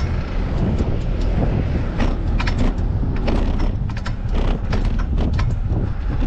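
Wind buffeting the microphone during a fixed-gear bike ride, a steady loud rumble with tyre and drivetrain noise, broken by many short irregular clicks and rattles.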